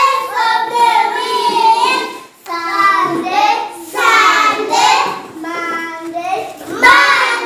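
Young children singing the days of the week in a sing-song classroom chant, phrase by phrase with short breaks between.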